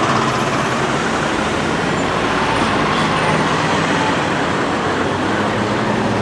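Loud, steady traffic noise of a busy city street, with trolleybuses and other road vehicles passing.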